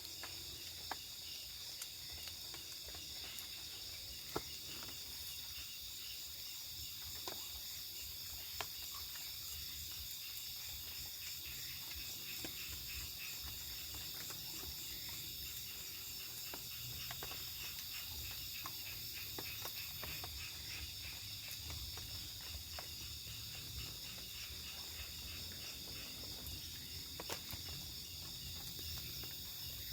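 Nighttime chorus of crickets and other insects, a steady high-pitched chirring in several layered pitches, with a few short faint clicks.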